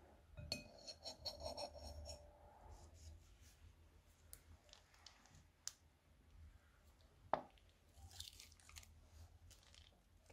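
Faint snip of scissors through the tip of a plastic piping bag, then crinkling of the bag and wet crackling and squelching of thick slime as it is squeezed out into a bowl, with scattered small clicks and one sharp click a little past seven seconds in.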